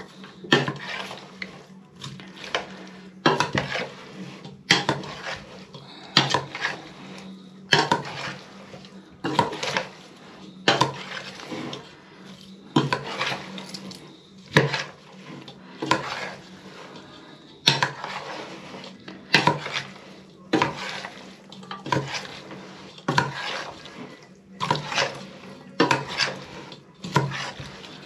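Metal spoons knocking and scraping against a stainless steel pot while stirring a wet mix of marinated fish, onion and carrot, with a knock about every second or so in a steady rhythm.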